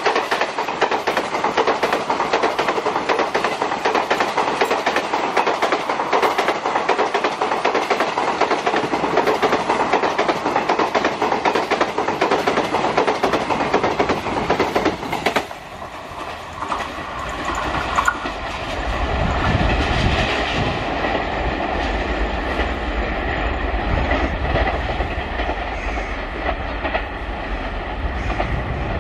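Passenger coaches of an express train passing at high speed, wheels clattering over the rail joints. About halfway through the clatter falls away, leaving a lower, steady rumble as the train moves off down the line.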